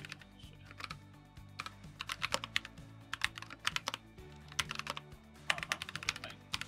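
Typing on a computer keyboard: several quick runs of key clicks, the densest near the end, as terminal commands are entered.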